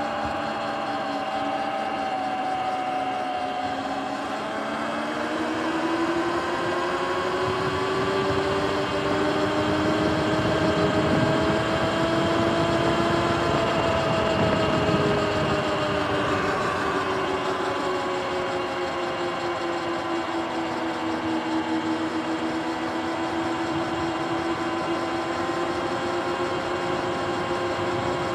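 Sur-Ron electric dirt bike's motor whining while riding, several tones climbing in pitch as it speeds up, dropping back about halfway through, then holding fairly steady. Underneath is a steady rush of wind and tyre noise.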